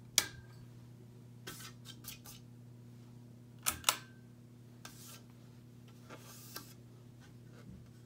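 Ceiling fan running with a steady low electrical buzz from its motor. Several sharp clicks and taps of handling break in, the loudest two close together about four seconds in.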